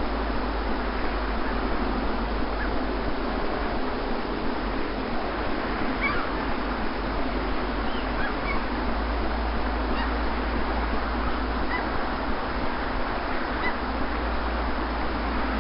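Steady wash of sea surf on a beach, an unbroken rushing noise with a low rumble beneath. Faint, short bird calls sound now and then over it, mostly in the second half.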